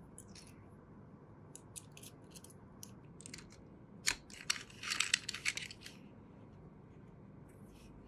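Small metal parts clicking and scraping as a wool felt buffing bit is fitted into the collet of an electric die grinder, with scattered light ticks and a burst of louder clicking and rasping about four to six seconds in.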